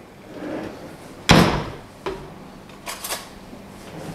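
A spatula knocking and scraping against a nonstick wok while stirring fish in sauce: one sharp knock about a second in, the loudest, then a few lighter knocks.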